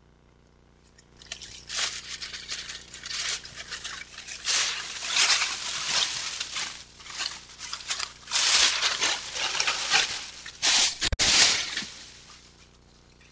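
Dry leaf litter rustling and crackling in irregular bursts as a long-tailed weasel drags a timber rattlesnake through it. A low thump comes near the end.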